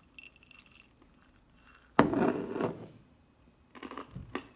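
Small glass jar of nuts: faint rattling and clinking as nuts are tipped out into a hand, a loud clatter about halfway through, then crunching as the dry nuts are chewed, a crunch about every half second.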